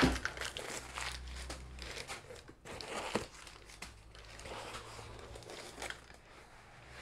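Paper wrapping crinkling and rustling as a boot is lifted out of a cardboard box and the paper is pushed aside. The rustle comes in uneven bursts, loudest right at the start.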